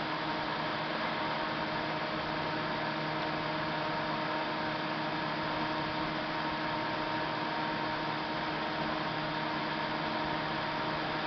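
A steady hum made of several fixed tones over an even hiss, with no separate events.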